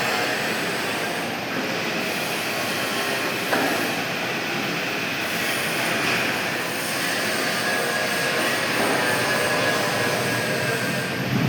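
Pipe-cutting lathe running and machining metal: a steady, loud grinding noise with several high whining tones over it, and a single knock about three and a half seconds in.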